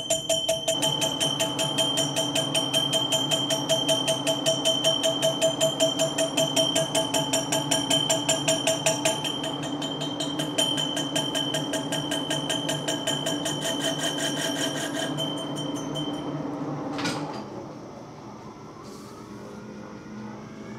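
Monarch engine lathe taking a turning cut on a welded stainless steel impeller seal ring with a carbide insert: a steady metallic ringing whine that pulses in a rapid, even rhythm, the tool cutting harder on part of each turn because the welded ring runs out of round. About seventeen seconds in the cut ends and the sound drops to a much quieter running.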